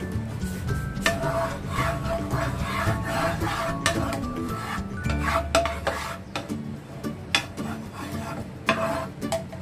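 A spatula scraping and rubbing in repeated back-and-forth strokes across the oiled nonstick surface of a double-sided frying pan, spreading the oil, with short clicks where it knocks the pan.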